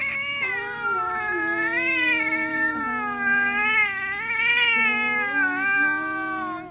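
Orange tabby domestic cat yowling, one long drawn-out call that wavers up and down in pitch.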